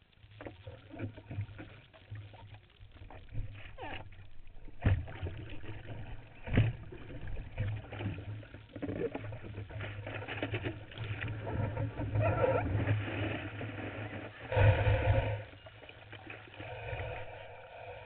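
Surf water sloshing and slapping against a surfboard as it is pushed through shallow waves, heard from close against the board: a steady low rumble with irregular splashes and knocks, a few of them much louder, the biggest late on.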